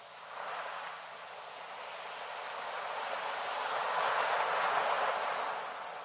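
Small sea waves washing up onto a sandy beach and running back: a smooth rush of surf that swells briefly in the first second, then builds slowly to its loudest about four to five seconds in and fades near the end.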